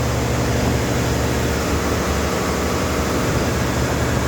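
Steady low mechanical drone of machinery running, an even hum with no change in pitch or level.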